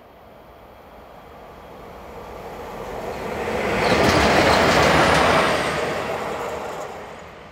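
Two coupled red SBB electric locomotives running light past at speed: rolling rail noise that swells as they approach, is loudest for about a second and a half as they pass, then fades quickly.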